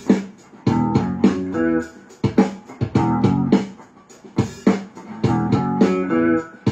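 Electric guitar playing a repeating riff in short phrases of about a second and a half, each followed by a brief pause.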